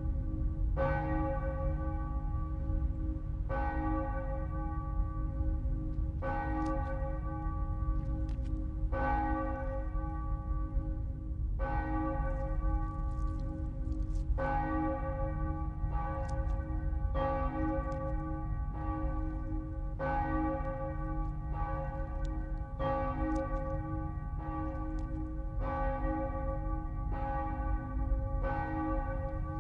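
A large bell tolling slowly and steadily, a stroke about every one and a half seconds, each stroke ringing on into the next, over a low steady rumble.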